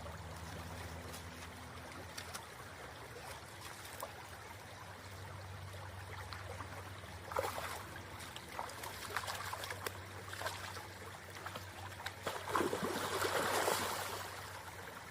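Shallow river running steadily over rocks, with bursts of splashing about halfway through and again near the end as salmon thrash their way upstream through the shallows.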